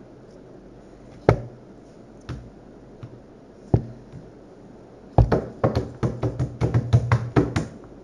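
Sharp clicks and knocks from a blue fidget spinner being handled and flicked by hand: three single knocks a second or so apart, then a quick run of about four or five clicks a second over the last three seconds.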